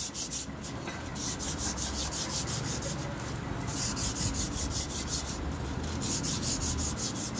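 Paper scrubbed by hand over the inside of a Tata Winger rear brake drum, cleaning the metal braking surface. It goes in quick back-and-forth strokes, several a second, with a couple of brief pauses.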